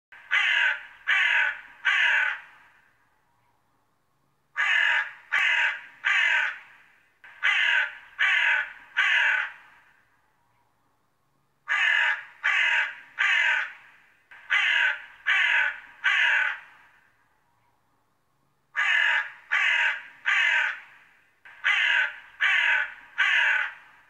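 A crow cawing in sets of three harsh caws, about seven sets with short pauses between them.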